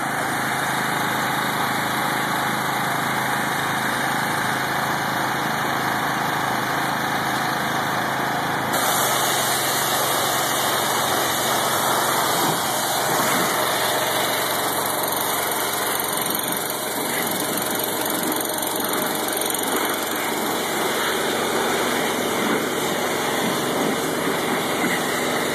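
Pressure washer running steadily, its motor droning, with the hiss of the high-pressure water jet spraying a car's bodywork.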